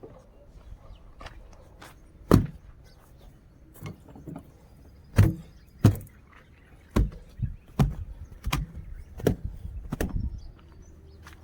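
Car driving on a rough road: irregular knocks and clunks from the body and suspension, about a dozen, over a low steady hum.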